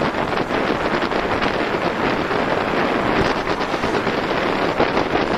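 Wind rushing over the microphone during a fast downhill ride at about 45 km/h: a loud, steady roar of noise.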